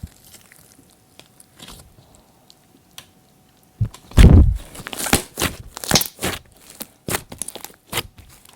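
Glossy slime being pressed and squished by hand, giving irregular sticky pops and crackles, with one loud low thud about four seconds in.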